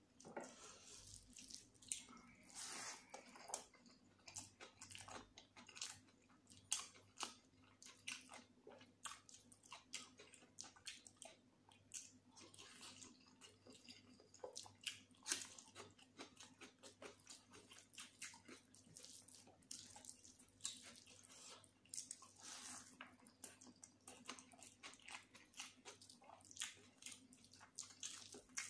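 A person chewing and biting mouthfuls of chicken biryani close to the microphone: wet mouth sounds with many short, irregular clicks.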